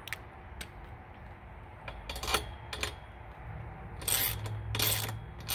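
A hand wrench tightening the bolts of a steel mast bracket clamped around a metal antenna mast pipe: a scattered series of sharp metallic clicks and scrapes, longer and louder from about four seconds in.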